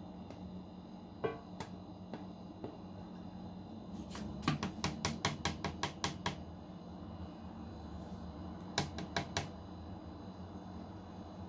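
A kitchen utensil tapping and scraping against a mixing bowl while batter is cleared from it: a quick run of about a dozen light taps, then three more a few seconds later.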